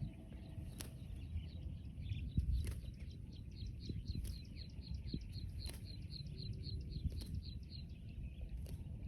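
A bird calling in a fast, even run of short high chirps, about five a second, starting a second or two in and stopping near the end, over a low rumble.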